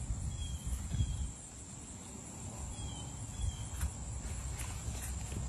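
Outdoor garden ambience: a steady high-pitched insect drone with a few short bird chirps, over a low rumble.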